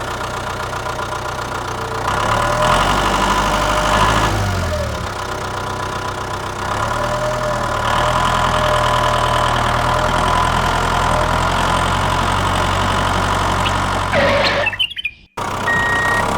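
Motor of a small machine running steadily, its pitch shifting a little at times, with a sudden brief drop to silence about 15 s in.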